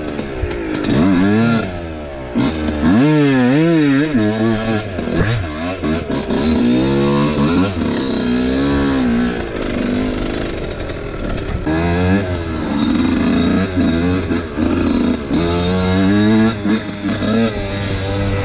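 Husqvarna WR 125 two-stroke enduro bike engine being ridden hard, its pitch rising and falling again and again with the throttle.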